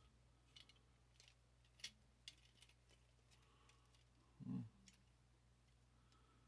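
Near silence with faint, scattered plastic clicks from a Transformers Siege Ultra Magnus figure being transformed by hand, its parts and joints fussy to move. A brief low sound comes about four and a half seconds in.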